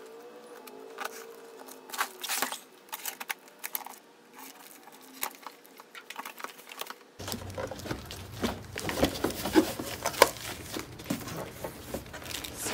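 Knife slitting the packing tape on a cardboard box, with scattered scrapes and rips. About halfway in, busier crinkling and knocking as the cardboard flaps are pulled open and the metal bed parts are handled inside the box.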